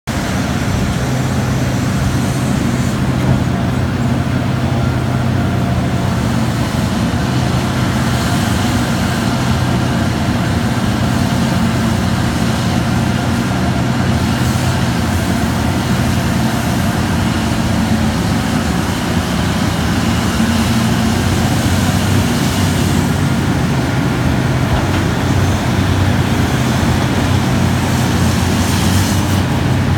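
Diesel engine of a Terex RH170 hydraulic front shovel running steadily under working load as it digs and loads a haul truck: a deep, even engine drone with a few brief swells of higher rushing noise.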